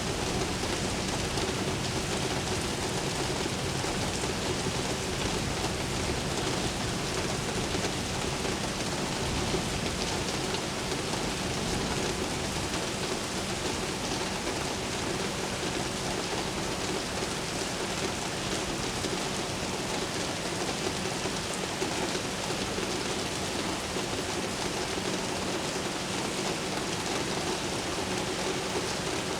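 Steady heavy rain falling and splashing on hard surfaces, with a faint steady low hum underneath.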